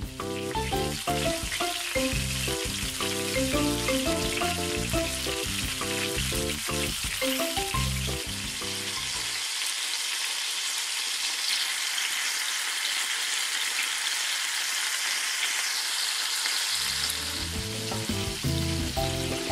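Chicken tsukune patties wrapped in shiso leaves sizzling steadily in hot oil in a frying pan. Light background music plays over the sizzle, stops about halfway through so that only the frying is heard, and returns near the end.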